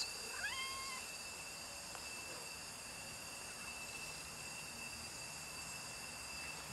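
A cat gives one short meow about half a second in, rising in pitch and then held briefly. A faint steady high-pitched whine runs underneath.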